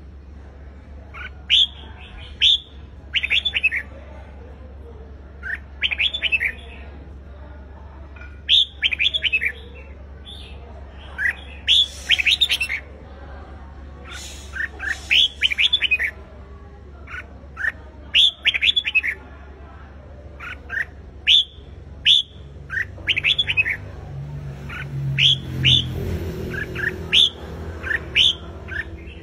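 Red-whiskered bulbul singing its fighting song in short phrases of quick rising and falling notes, one phrase every two to three seconds. A low rumble comes up under it near the end.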